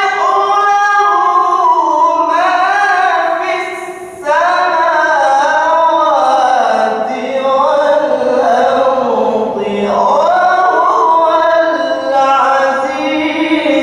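A man reciting the Quran in the melodic, chanted style, holding long ornamented phrases with a short breath break about four seconds in. The pitch starts high and settles lower in the later phrases.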